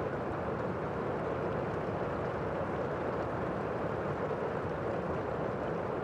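Rain falling steadily, an even hiss with no thunder or separate drops standing out.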